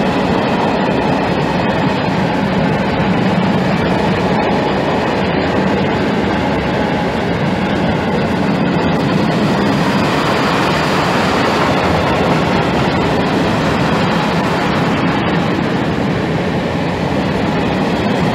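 Mixed freight train's wagons, open gondolas, rolling past close at speed: a steady, loud noise of wheels running on the rails.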